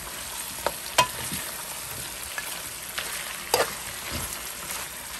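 Pork pieces sizzling as they brown and caramelize in a metal pot, with a metal spoon scraping through them and clinking sharply against the pot a few times as they are stirred.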